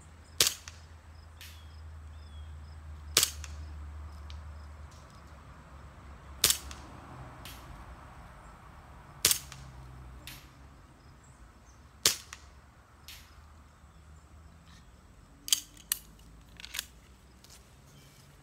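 A 1911 pistol firing seven single shots, roughly three seconds apart at first, then two in quick succession about half a second apart near the end. A fainter sharp crack follows about a second after several of the shots.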